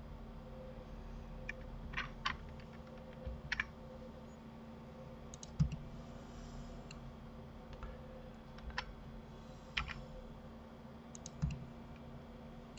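Computer keyboard keys and mouse buttons clicking, about a dozen short clicks at irregular intervals, as Blender shortcuts are pressed and objects are placed. A faint steady hum lies underneath.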